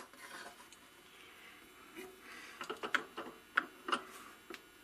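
A wooden board being shifted and lined up on a drill press table, making a scattering of light clicks and knocks. The handful of sharp taps comes mostly in the second half.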